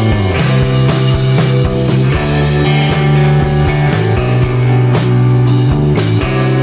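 Background rock music with electric guitar and a drum kit keeping a steady beat.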